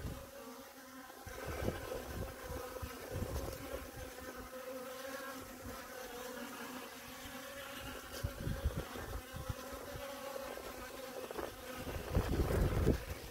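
Honey bees buzzing in numbers around a water trough, a steady hum of many wings. Low rumbles of wind on the microphone come and go and grow stronger near the end.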